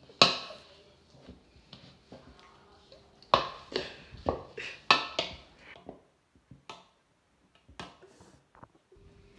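A spoon stirring in a bowl, knocking and clacking against its sides in a run of sharp knocks. The knocks come thickest from about three to five seconds in, with a few stray ones later.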